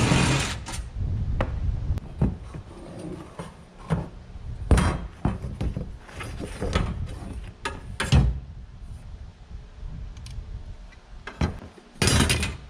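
Cordless impact driver running in short bursts, about half a second each at the start and near the end, as it backs out the Torx screws holding the top bars of an IBC tote's steel cage. Between the bursts come sharp knocks and smaller clanks and rattles of the metal bars and the tool against the tote.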